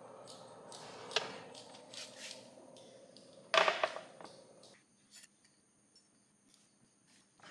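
A metal baking sheet of cookies being taken out of the oven. A steady hum carries clinks and scrapes, with a loud clatter about three and a half seconds in as the tray comes down. The hum stops about a second later, followed by a few faint taps as the baked cookies are lifted off the sheet.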